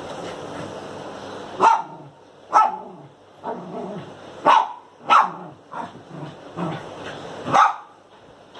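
A small dog barking: about seven short barks at irregular intervals, a few of them sharper and louder than the rest.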